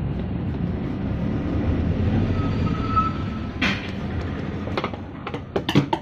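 Handling noise as a hand twists a washing machine's spin-tub seal anticlockwise to unscrew it: rubbing over a steady low rumble, then a run of sharp clicks and knocks in the last two and a half seconds.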